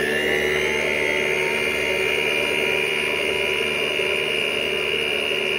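Electric stand mixer running steadily at speed, its flat beater churning cake batter in a steel bowl, with a constant motor whine.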